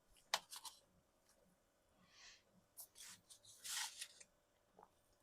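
Faint, scattered rustles and a few sharp clicks of hands handling sliced deli meat and its packaging while a sandwich is put together, with a slightly louder rustle about two-thirds of the way through.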